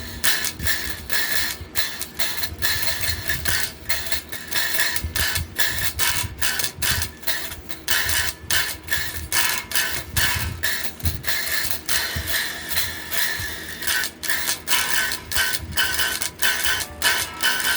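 Guitar riffs played with hard, fast strumming: a steady run of scratchy, percussive strokes, several a second.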